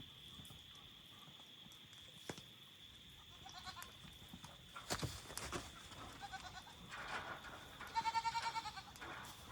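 Goats bleating several times, the longest a quavering bleat near the end, over a steady high-pitched cricket trill. A few sharp clicks stand out, one about five seconds in.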